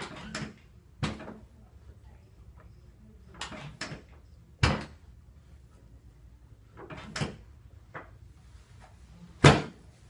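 Chiropractic drop table's drop section clunking down under the chiropractor's thrusts during a drop adjustment meant to loosen a tight back: a series of sharp, irregular knocks, some in quick pairs, the loudest near the end.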